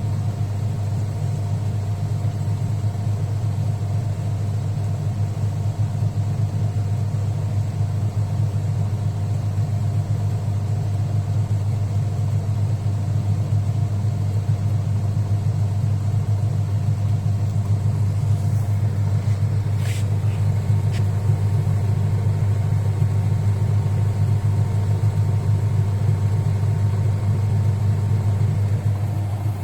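Sanyo top-loading pulsator washing machine on its spin cycle: motor and spinning tub give a steady low hum. A few brief clicks come about twenty seconds in.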